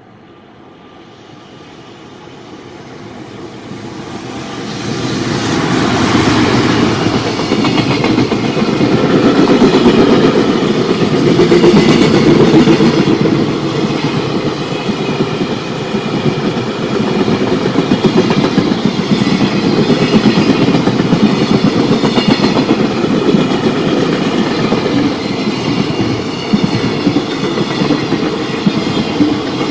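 Freight train approaching, growing steadily louder over the first five seconds, then passing close by with a long, steady run of wagon wheel clatter on the rails.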